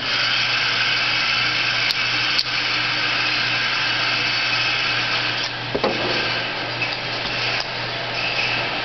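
A steady mechanical whir, like an electric motor or blower running, that starts abruptly and eases a little after about five and a half seconds, with a few faint clicks.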